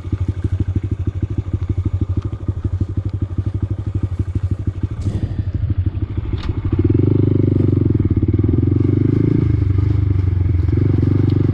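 Honda Grom's single-cylinder four-stroke engine idling with an even beat of firing pulses, then the throttle opening about seven seconds in as the minibike pulls away and runs steadily, easing off briefly a couple of seconds later.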